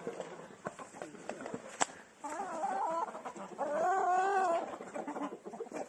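Chickens clucking and calling, with two drawn-out calls: a shorter one about two seconds in and a louder, arching one about four seconds in.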